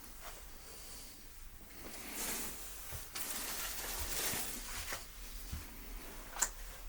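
Soft rustling and shuffling of someone moving through a cluttered room, swelling about two seconds in and again from about three seconds, with a sharp click near the end.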